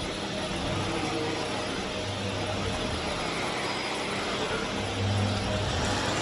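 Vax Air Steerable Max upright vacuum cleaner with a 750-watt motor running steadily: a constant rush of air with a thin high whine.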